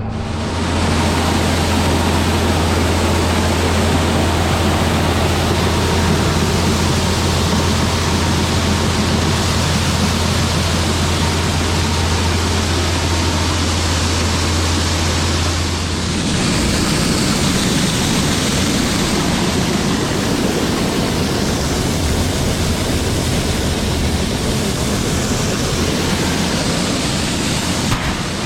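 Farm machinery running: a steady engine hum under a loud rushing noise. The hum drops away a little past halfway while the rushing noise carries on.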